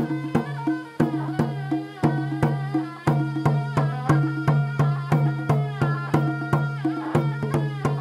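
Iranian folk dance music: a sorna (shawm) plays a wavering melody over a steady low drone, with drum beats in a quick, steady rhythm.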